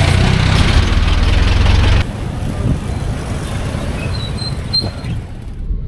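A motor vehicle's engine running with a loud low rumble, cut off abruptly about two seconds in by quieter, steady street and traffic noise.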